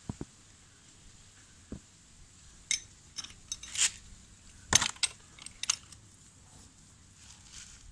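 Metal tools and small parts clinking and tapping against each other in a scattered run of sharp clinks, thickest and loudest between about three and six seconds in, with a few lighter clicks before.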